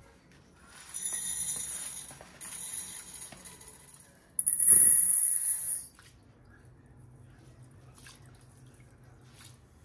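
Dry rice grains poured from a plastic bag into a stainless steel bowl: a hissing, rattling pour. The loudest stretch lasts about a second and a half near the middle, after shorter bursts of rustling and pouring. Then faint sloshing as the rice is rinsed by hand in water.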